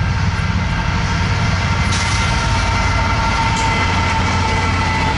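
Norfolk Southern freight train passing at speed, about 40 mph: a loud, steady heavy rumble of the train on the rails, with thin steady tones above it.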